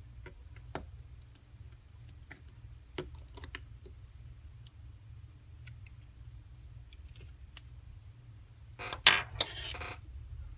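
Small tools and iPhone 5c parts clicking and tapping on a work surface as the phone is taken apart, with a louder rattling scrape lasting about a second near the end. A steady low hum runs underneath.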